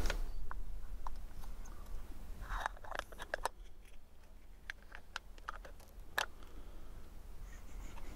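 Scattered faint clicks and light rustling from handling a scoped bolt-action rifle and its sling, with a small cluster of clicks about three seconds in.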